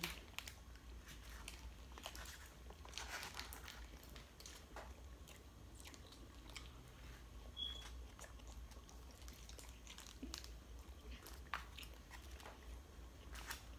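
Faint chewing and crunching of fried chicken wings, with scattered short clicks and crackles as the food is pulled apart by hand, over a low steady hum. A brief high chirp sounds about eight seconds in.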